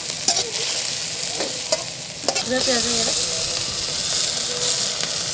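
Panch phutana spices frying in hot oil with a steady sizzle, stirred with a ladle that scrapes and knocks against the pot a few times. The sizzle grows louder about halfway through.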